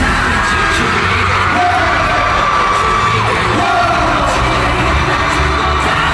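Live K-pop song played loud through arena speakers, with singing over the beat and crowd noise mixed in.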